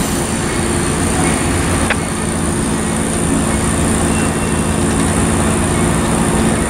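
Norfolk Southern EMD SD70ACe diesel-electric locomotives, V16 two-stroke prime movers, running steadily as they pass close by in a multi-unit consist. A single short click about two seconds in.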